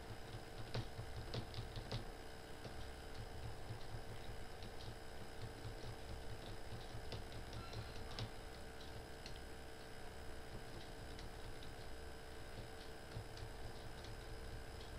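Computer keyboard keys being pressed: scattered light clicks, a quick run of them in the first couple of seconds and then sparser, over a steady low hum.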